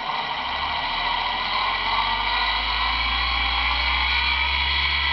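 A 50 Hz electric motor run from a ZW-BT1 variable-frequency drive, speeding up as the drive's output is raised toward 70 Hz. Its hum grows louder and a whine rises in pitch over the first few seconds, over a steady high-pitched whine.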